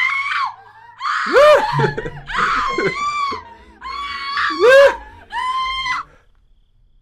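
A woman screaming: five high-pitched shrieks in about six seconds, with a lower cry rising and falling beneath two of them.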